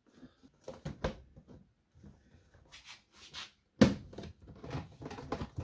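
Black plastic panels of a YakAttack BlackPak Pro kayak crate knocking and clacking as they are fitted together, with a brief scrape and then one sharp, loud knock a little under four seconds in, followed by several lighter clacks.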